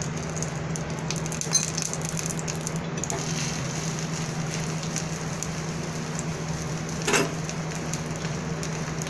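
Bread roasting in ghee on a hot pan, sizzling steadily, with a light knock twice.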